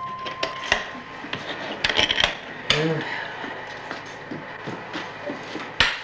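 Hands working the metal latches and lid of a foam-lined egg-carrying case: a run of sharp clicks and knocks, the loudest knock near the end.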